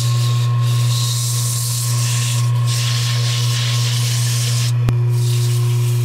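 Jet wood lathe running with a steady hum while sandpaper is held against the spinning wooden egg, giving a rough hiss that drops away briefly a few times. A sharp click about five seconds in.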